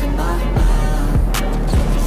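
Background music with a heavy bass line and a steady drum beat.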